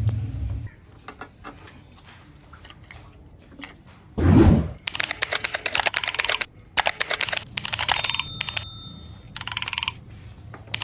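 Bursts of rapid clicking and rattling, with a loud dull thump about four seconds in and a low hum that stops just under a second in.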